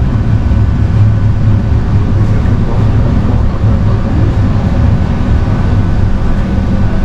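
Kirandul Express passenger train under way, its running noise a loud, steady low rumble.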